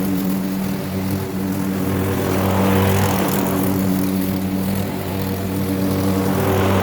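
Gasoline walk-behind rotary lawn mower running steadily while mowing grass, its small engine giving a constant low hum under the blade's whoosh.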